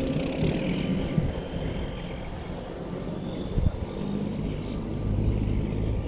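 An engine droning steadily over a low rumble, growing a little louder near the end.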